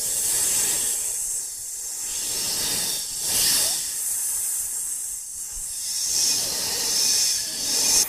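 A steady, mostly high-pitched hiss like escaping steam, swelling louder a few times.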